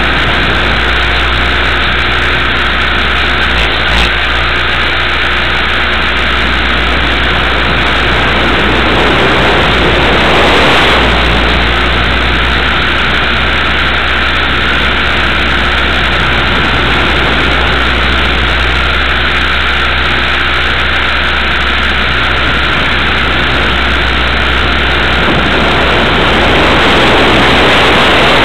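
Electric RC helicopter's motor and rotor running steadily in flight, heard through a small onboard camera microphone as a loud, even whir with a constant low hum. The sound swells briefly about ten seconds in.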